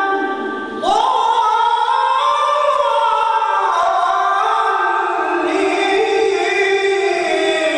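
A man reciting the Qur'an in a melodic, sung style into a microphone, holding long ornamented notes. A brief breath break comes just before a second in, then a new phrase rises and slowly winds downward.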